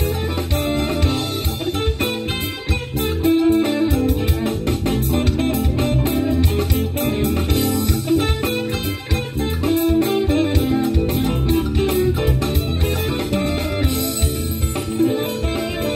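A live funk-jazz band playing an instrumental groove, with electric guitar over bass and a busy drum kit.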